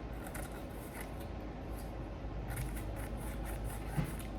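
Faint handling noise: small rustles and clicks over a steady low room hum, with a light knock near the end.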